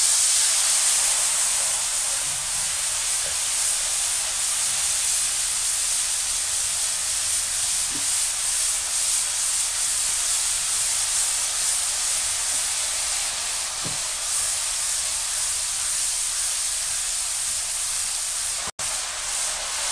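Hot oil and ground spice masala sizzling hard and steadily in a wok: water has just been splashed into the frying chillies and spices. The hiss eases only slightly.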